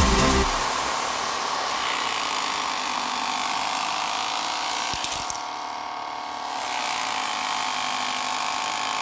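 Small electric desk fans running together: a steady motor whir with several faint pitched lines. A couple of clicks come about five seconds in, after which the sound briefly dips.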